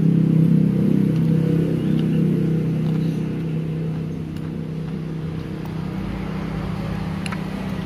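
A motor vehicle engine running, a steady low hum that is loudest over the first few seconds and then eases off a little.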